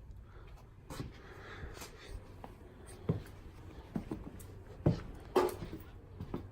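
Irregular knocks and clunks, a handful of separate hits with some scraping between them, over a faint steady low hum.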